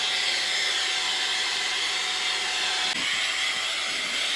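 Cordless 2-in-1 electric duster and vacuum running in duster mode on the highest of its three speeds: a steady, high-pitched whir of motor and rushing air.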